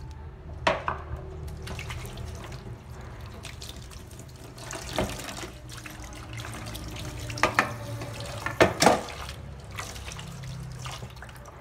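Water sloshing in a plastic basin in a stainless-steel sink as small lizardfish are rinsed by hand, with a few sharp splashes and knocks about a second in, around the middle, and twice a little later.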